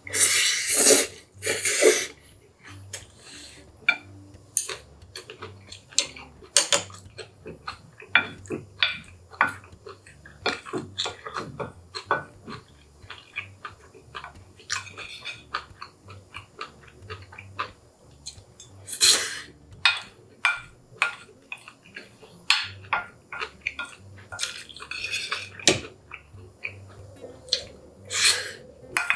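Close-miked eating of Chapagetti black-bean noodles and green-onion kimchi: wet chewing and mouth sounds, with a wooden spoon and chopsticks scraping and clicking against a ceramic plate. Louder wet bursts come right at the start, about nineteen seconds in, and again near twenty-five seconds.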